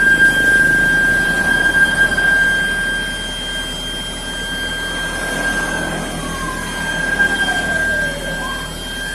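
Several fire engine sirens sounding at once: one holds a steady high tone while another slides down in pitch in the last few seconds.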